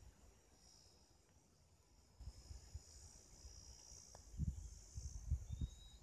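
Steady high insect chorus, growing louder about two seconds in, with a brief rising chirp near the end. From about halfway through, low rumbling thumps on the microphone become the loudest sound.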